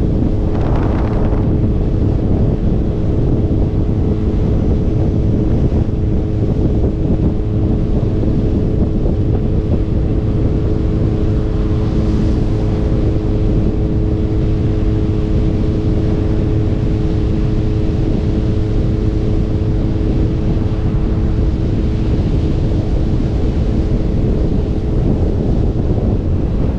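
Motorcycle riding at a steady pace, with heavy wind rush on the camera's microphone and a steady engine drone beneath it that drops away near the end.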